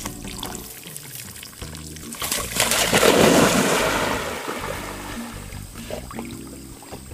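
A yellow Labrador retriever plunging into a pond with a loud rush of splashing water about two and a half seconds in, fading as it swims off, over background music.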